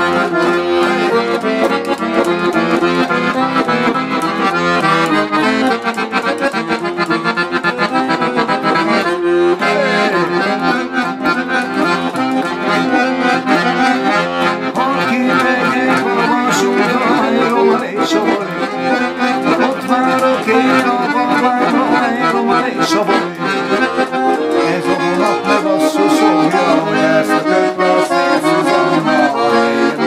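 Solo piano accordion playing a continuous tune, with melody on the treble keyboard and chords from the bass buttons.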